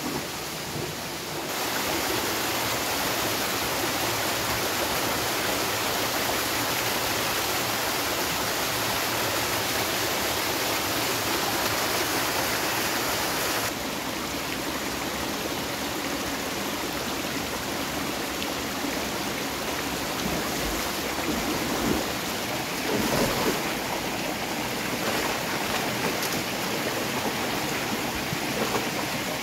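Stream water rushing steadily. It gets louder about a second and a half in and a little quieter about fourteen seconds in, with a few brief louder sounds in the water a little over twenty seconds in.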